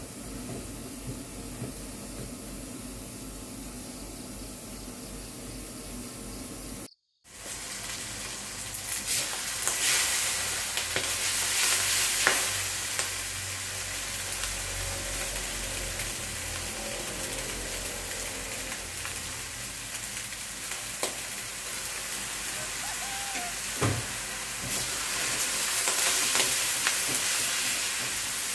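Instant noodles and scrambled egg stir-fried in a wok, sizzling as a metal spatula tosses them and scrapes the pan. Before that, a short stretch of a pot of noodles bubbling on the stove, cut off about seven seconds in.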